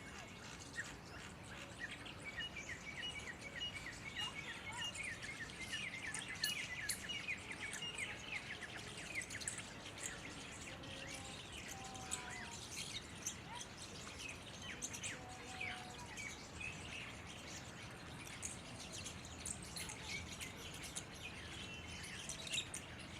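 Myna calling: a fast run of short, sharp chirps over the first several seconds, then scattered chirps and clicks with a few lower whistled notes.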